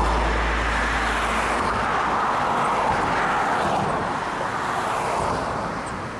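Road traffic: a steady rush of car tyres and engines that swells and fades a few times as vehicles pass. The low notes of background music die away at the very start.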